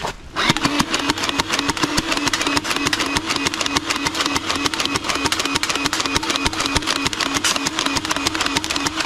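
Battery-powered toy gatling blaster running its motor and firing a belt of foam darts in rapid succession: a steady motor hum under a fast run of clicks. It starts about a third of a second in and keeps going without a break.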